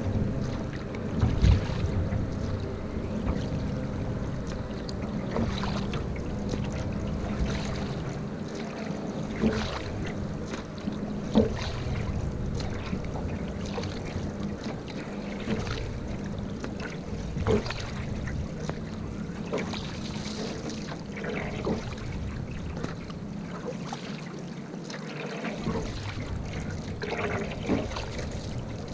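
Single-bladed canoe paddle dipping and pulling through lake water, a splash about every two seconds, with water trickling and lapping along the canoe's hull.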